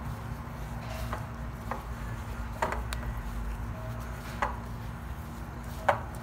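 Gloved hand rubbing oil into flour in a glass bowl, with about six sharp, irregularly spaced knocks of the hand against the glass. A low steady hum runs underneath.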